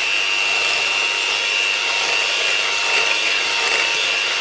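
Electric hand mixer running steadily, its beaters whisking eggs in a glass bowl: a constant high-pitched whine over a whirring hiss.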